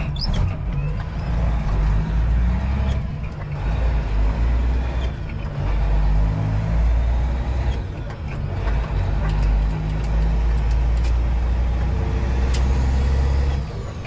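Detroit Diesel engine of a Freightliner semi, heard from inside the cab as the truck accelerates. It pulls strongly, with a brief dip about every few seconds as the 13-speed transmission is shifted up.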